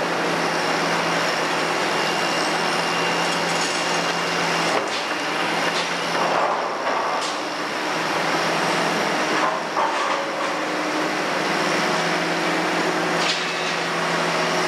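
Kobelco 350 excavator's diesel engine running steadily under hydraulic load as it digs into a demolition debris pile, with a few short knocks and clatters of debris against the bucket.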